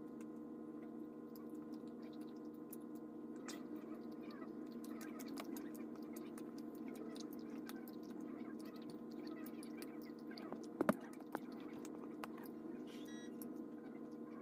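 Chewing a rubbery gummy bologna candy, with many soft wet mouth clicks over a steady low hum. Two sharper clicks stand out about eleven seconds in.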